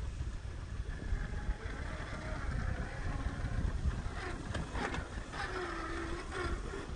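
Traxxas TRX-4 RC crawler's electric motor and gearbox whining in short spurts that shift in pitch as the throttle changes, over a steady low rumble, with a few clicks near the middle.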